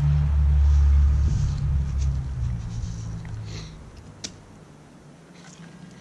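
Gusty wind buffeting the microphone: a heavy low rumble that is strongest in the first second or two and dies away by about four seconds in. A single light click comes just after it eases.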